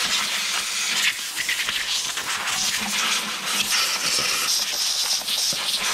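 Compressed-air blow gun hissing at low pressure as it blows sawdust and oil build-up out of a chainsaw's housing, the hiss varying in strength as the nozzle moves.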